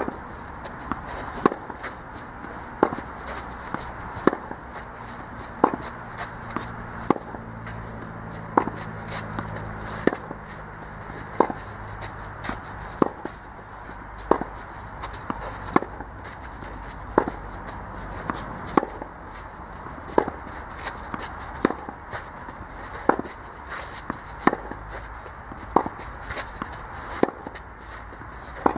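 Tennis ball struck by rackets in a steady baseline rally on a clay court: sharp racket hits at an even pace, roughly one every second and a half, with softer knocks in between.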